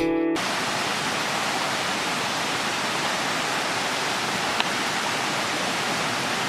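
Music cuts off just after the start, giving way to a steady, even rushing noise with one faint click a little past halfway.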